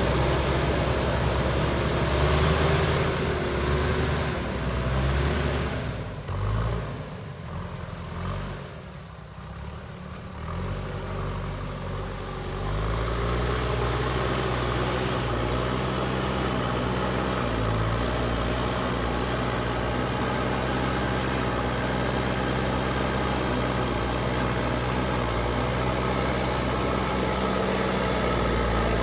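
Diesel engine of a JCB backhoe loader running under work. It eases off and quiets for a few seconds about six seconds in, then picks up and runs steadily from about thirteen seconds on.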